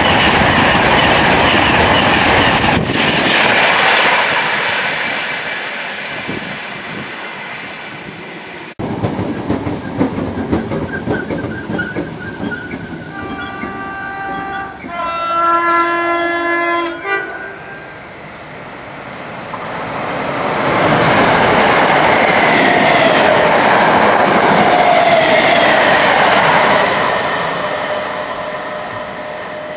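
East Coast Class 91 and Mk4 coaches passing at speed, the rush and clatter of the wheels fading over the first few seconds. About halfway through, a train horn sounds two notes, high then low. Then another train passes loudly for several seconds and fades.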